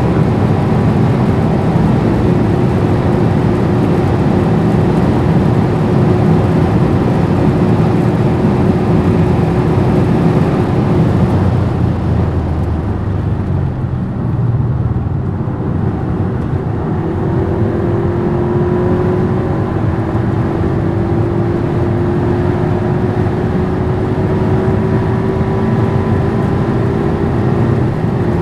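Skoda Superb 4x4 driving at high speed, with a steady mix of engine, tyre and wind noise. About twelve seconds in the engine eases off briefly, then the car pulls again with its engine note rising slowly as it gathers speed.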